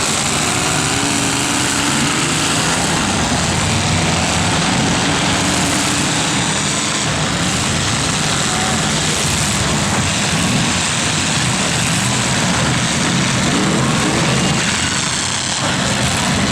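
Many demolition derby car engines revving hard at once, their pitches rising and falling over one another in a continuous loud din.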